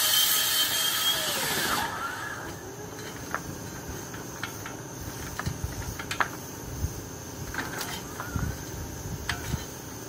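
Compressed air from an air hose blasting through a dryer vent pipe, a loud hiss that cuts off about two seconds in. Then scattered clicks and light knocks.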